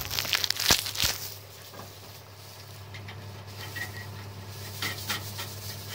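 Steady low hum from a CNC lathe, with two sharp knocks in the first second and a few light clicks after.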